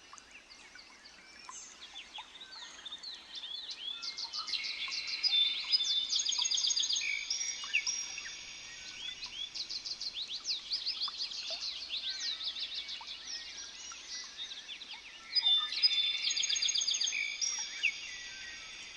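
Several birds singing and calling at once, a dense chorus of quick high chirps and whistles that swells about a quarter of the way in and again near the end.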